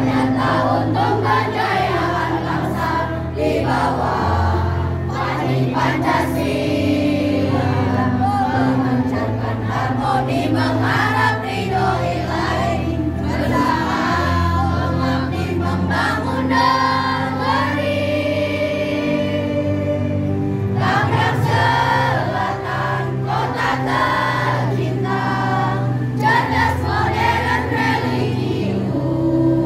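Choir of women and children singing a hymn together, over sustained low accompanying notes that change every few seconds.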